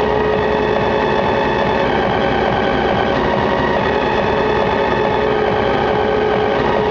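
JCB 8080 ZTS excavator's diesel engine and hydraulics running steadily under working load as the machine slews and digs, heard from inside the cab, with a steady high whine over the engine.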